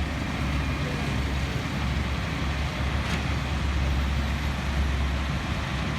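Heavy diesel machinery engines running with a steady low rumble, with a faint click about three seconds in.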